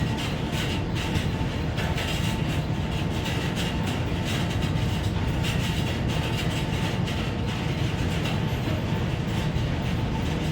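Steady, loud mechanical rumble of running machinery, with irregular light rattling ticks over it.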